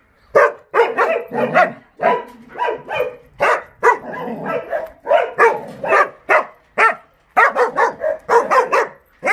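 Jindo dogs barking over and over in short, sharp barks, about two a second, with a brief pause near the end.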